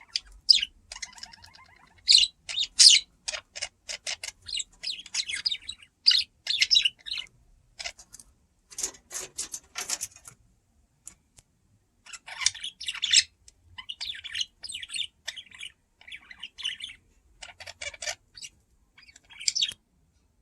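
Pet budgerigars chirping and chattering in rapid runs of short, high chirps, with a brief pause about halfway through.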